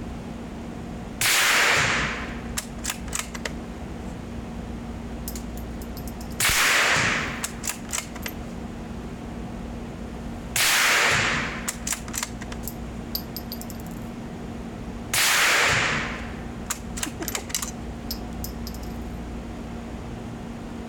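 Suppressed Tikka T1X bolt-action rimfire rifle firing supersonic rounds: four shots about four to five seconds apart. Each shot is followed by a quick run of sharp metallic clicks as the bolt is worked.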